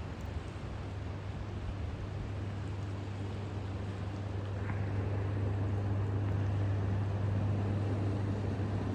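A steady low engine drone that slowly grows louder.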